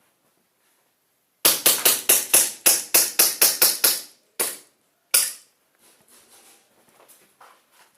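Airsoft gun firing a quick string of about a dozen shots, roughly four a second, then two more single shots.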